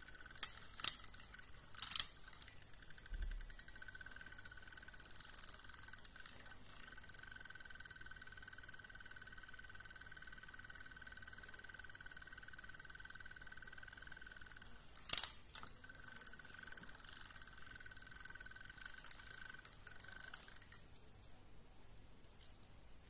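Small electric motor of a battery-powered spinning bird-on-a-wire cat toy whirring with a steady whine, punctuated by a few sharp plastic clicks as the cat grabs the toy bird. The whine cuts off near the end.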